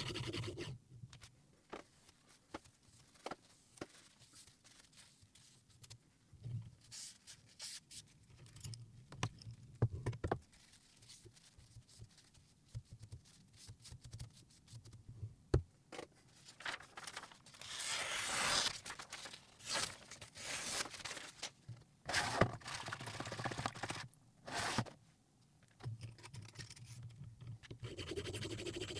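Intermittent clicks and short scrapes of metal and stone being handled on a guided knife sharpener, with a few brief rubbing strokes in the second half.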